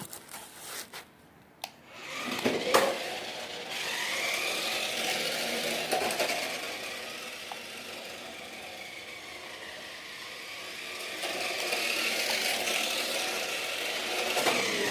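Small electric motor of a toy RC Dodge Charger Hellcat whining as the car drives, its pitch rising and falling with speed. A few light clicks come before the motor starts up about two seconds in.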